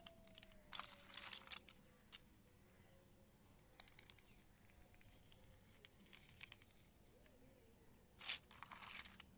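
Near-silent room tone broken by a few short, faint rustles and clicks of plastic toy cars and blocks being handled on a cloth, the loudest cluster near the end.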